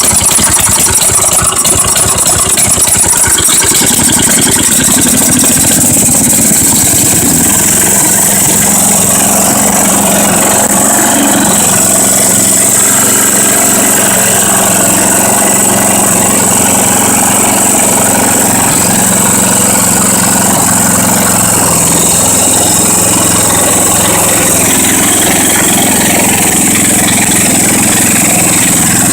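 10 hp Tecumseh single-cylinder engine on a garden tractor starting up on a newly replaced carburetor. It runs rough and uneven for the first few seconds, then settles about seven seconds in to a steady, even run.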